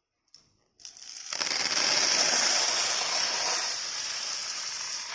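Dry granular feed, such as grain or beans, poured in a steady stream into a toy barn, a continuous rattling hiss that cuts off sharply at the end.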